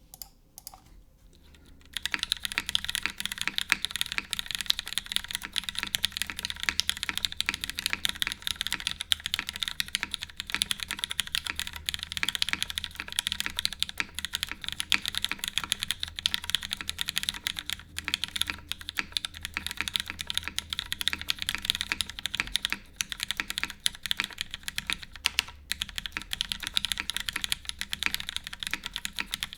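Continuous fast typing on an RS TKL custom mechanical keyboard fitted with lubed and filmed retooled Cherry MX Black linear switches, a full aluminium plate, no foam, and GMK keycaps. The typing starts about two seconds in, after a short quiet stretch.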